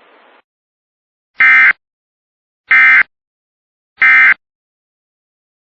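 Emergency Alert System end-of-message tones: three short bursts of screechy SAME digital data, each about a third of a second long and a little over a second apart. They signal that the flood warning broadcast has ended.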